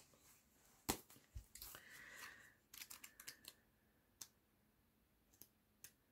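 Faint paper handling as a sticker book is picked up and its sheets leafed through: a sharp tap about a second in, a short rustle, then a run of small clicks and page flicks, and a few single ticks near the end.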